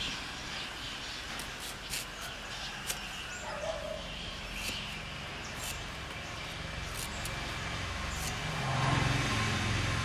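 Scattered sharp clicks of a raw sweet potato being peeled and sliced against a floor-mounted curved cutting blade (aruvamanai). A low engine-like hum swells near the end.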